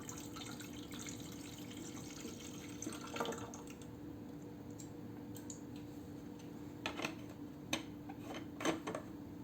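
Water being poured into the top-filling tank of a humidifier, a quiet steady trickle, with a few sharp clicks near the end.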